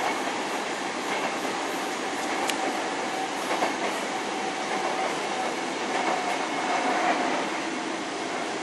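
Sotetsu 7000 series electric train running on the line, heard from inside a passenger car: steady rolling noise from wheels and track with a faint steady whine and a few sharp clicks over rail joints.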